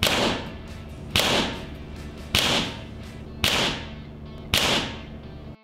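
Gamo Swarm Magnum .22 gas-ram break-barrel air rifle firing five shots, a little over a second apart, each a sharp crack with a short echoing tail, over background music.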